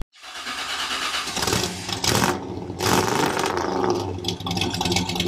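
Car engine sound effect: an engine starting and revving, with the loudest blips about two and three seconds in before it runs on.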